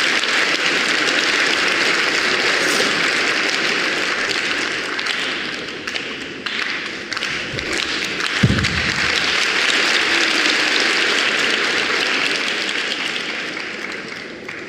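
Crowd applauding steadily, dying down near the end, with a single heavy thump about eight and a half seconds in.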